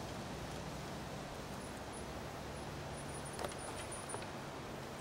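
Quiet outdoor ambience: a steady low hum under a faint even hiss, with a few faint high chirps in the middle and a couple of light ticks.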